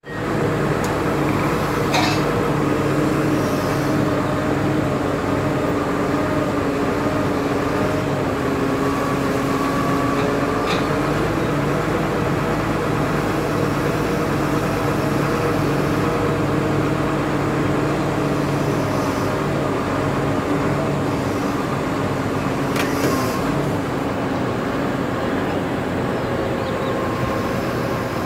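Mobile crane's engine running steadily under load while hoisting a steel truss, a constant engine hum whose pitch wavers slightly. A few brief sharp clicks sound about two seconds in, around ten seconds in and near twenty-three seconds.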